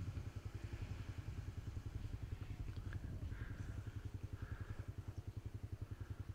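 A small engine idling with an even, rapid low pulse of roughly eight to ten beats a second. A couple of faint short chirps sound about halfway through.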